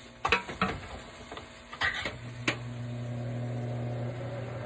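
A few clinks and knocks of metal cans being handled, then from about two seconds in the steady hum of an electric can opener's motor running as it opens a can.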